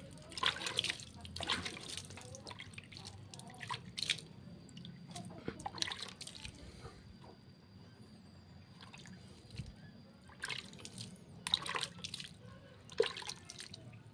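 Water drops splattering in scattered bursts as water is flicked by hand onto a potted lemon cutting's leaves and wet soil.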